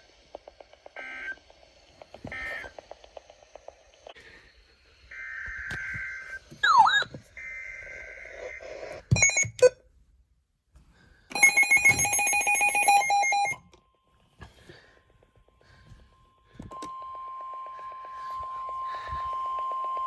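Emergency alert broadcast signals: short bursts of buzzy digital data tones, a few electronic chirps and a pulsing ringing tone. From about 17 seconds in comes a steady, single-pitched weather radio alert tone that keeps going.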